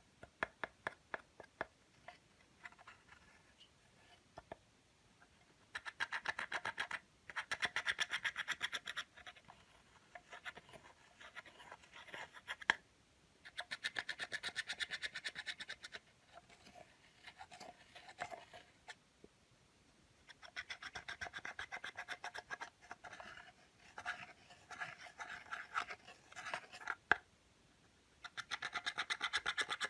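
Clear slime being squished and kneaded by hand, giving off a rapid, dense crackle of small clicks and air pops. The crackle comes in spells of a few seconds each, with quieter, sparser clicks between.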